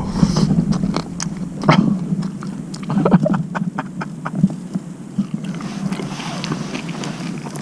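Long stainless-steel chopsticks clicking and scraping as they pick apart a grilled yellowtail collar on a plate, with scattered sharp ticks over a steady low hum.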